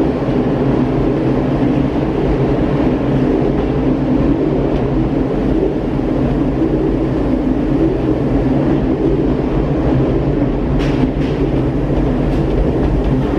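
Gateway Arch tram capsule climbing: a steady mechanical rumble with a constant hum, heard from inside the small capsule. A couple of light clicks come about eleven seconds in.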